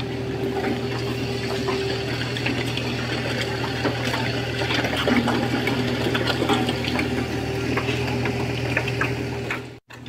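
A road roller's engine running steadily while glass liquor bottles crack and crunch under it in scattered crackles. The sound drops out briefly near the end.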